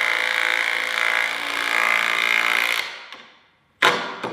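Cordless drill driving a lag screw into a pre-drilled wooden block, running steadily under load, then winding down and stopping about three seconds in. A short burst follows near the end.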